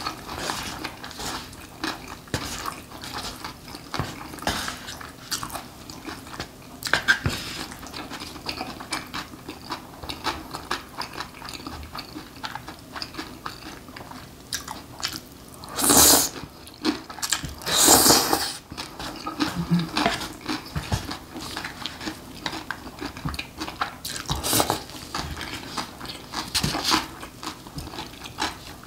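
Close-up eating sounds of spicy mixed noodles: chewing and wet mouth noises, with metal chopsticks clicking and scraping in a disposable bowl. About halfway through come two louder slurps of noodles, the second longer.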